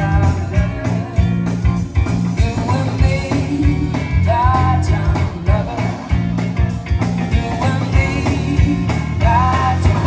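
A live band playing a rock song, a singer's voice over guitar, a steady bass line and drums.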